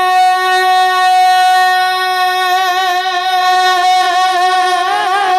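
A man's singing voice holding one long note in a naat, the pitch steady at first and wavering with vibrato near the end.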